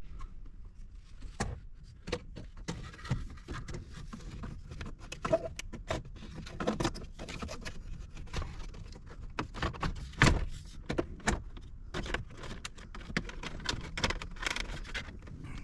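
Irregular clicks, taps and light rattles of a car's instrument bezel being handled and fitted into the dashboard, with one sharper knock about ten seconds in.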